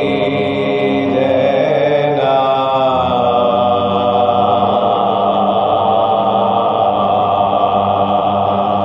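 Men's voices chanting soz, a slow Shia mourning lament, in long held notes with a sliding change of pitch about two seconds in.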